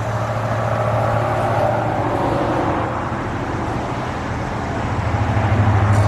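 A car engine running close by, a steady low rumble that grows louder near the end.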